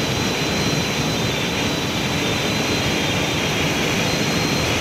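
Motorcycle at top speed: steady wind rush over the microphone together with the Suzuki Gixxer SF 155's single-cylinder engine held flat out at about 124 km/h in fifth gear, its top speed.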